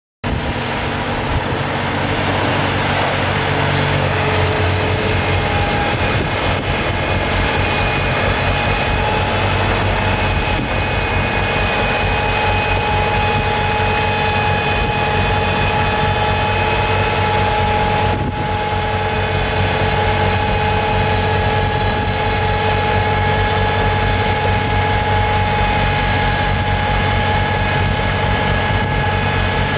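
Tractor engine running under steady load while a HitchDoc HDS8210 PTO-driven snowblower cuts through deep, hard-packed snow: a constant engine hum with a steady high whine over it from the blower. It cuts in abruptly at the start.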